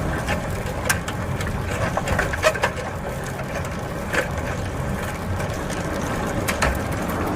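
Bicycle riding over a rough forest trail: a steady rumble of tyres and wind with frequent irregular clicks, knocks and rattles.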